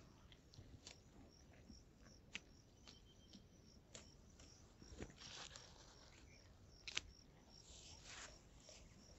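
Faint outdoor scrubland ambience: a string of short high chirps, about three a second, with scattered sharp clicks and two brief rustles.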